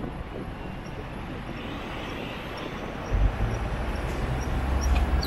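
Road traffic noise heard from a moving electric motorcycle in city streets. A heavy low rumble comes in about three seconds in, over faint high ticks repeating about three times a second.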